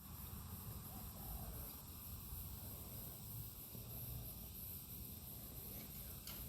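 Faint bush ambience: a steady, high-pitched insect chirr that pulses evenly, over a low background rumble, with one small click near the end.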